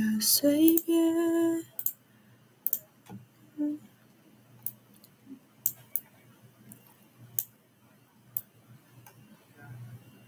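A woman's voice holds a short sung note, rising slightly in pitch, in the first two seconds. Then comes a quiet stretch with a low steady hum and a few sharp clicks at irregular intervals, roughly a second or two apart.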